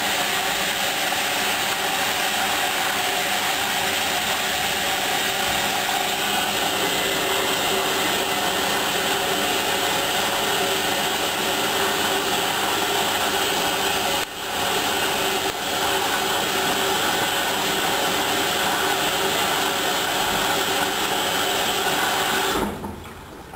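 Hoover washing machine running with a steady loud whir during the rinse of its wool cycle. It dips briefly twice in the middle and cuts off sharply about a second before the end.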